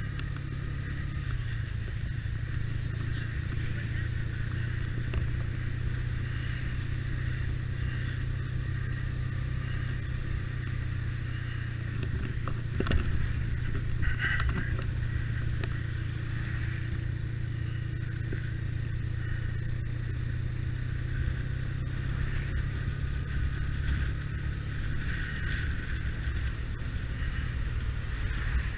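Motorcycle engine running steadily while riding, its low hum dipping slightly in pitch near the end, with a couple of sharp knocks about halfway through.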